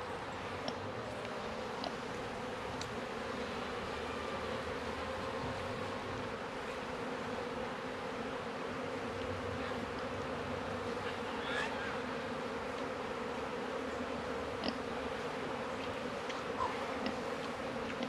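Many honeybees buzzing in a steady drone over an opened hive, agitated and defensive from the inspection. A few light clicks come from the wooden frames being handled.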